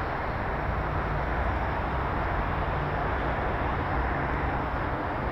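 Steady low hum of an idling vehicle engine under constant outdoor background noise.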